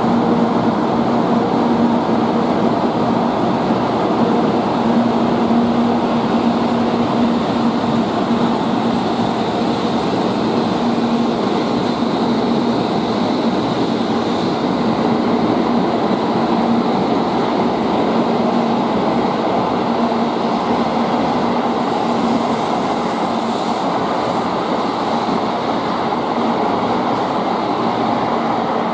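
N700A Shinkansen high-speed train departing the station: a steady rush of wheels and running gear as it pulls away along the track, with a low hum that fades out about two-thirds of the way through.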